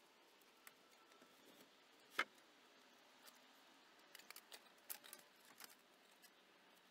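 Near silence with scattered faint clicks and ticks, one sharper knock about two seconds in and a little run of small clicks later on.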